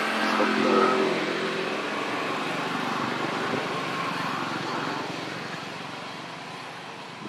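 A motor engine running, loudest about a second in and then slowly fading away.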